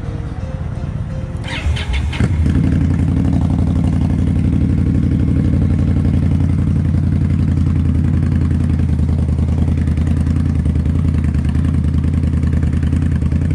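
A motorcycle engine cranked on the starter and catching about two seconds in, then running steadily.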